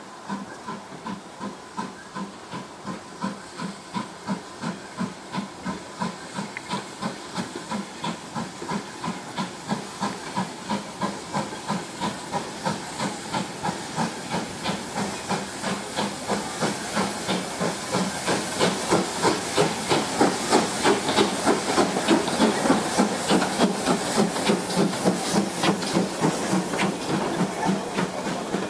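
GWR 4500 class 2-6-2 prairie tank steam locomotive working a train, its exhaust chuffing in an even beat of about two to three a second over a steady hiss. The beats grow louder in the second half.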